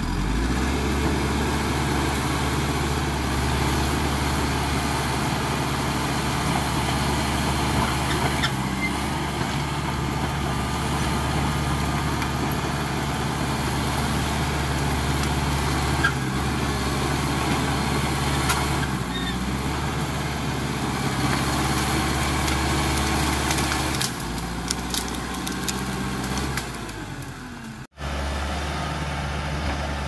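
Caterpillar D5K XL crawler dozer's diesel engine running steadily under load, with scattered sharp cracks and knocks as the machine works through brush and loose soil.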